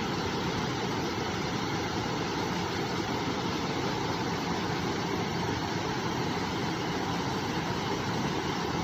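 A river's flowing water making a steady, even rush.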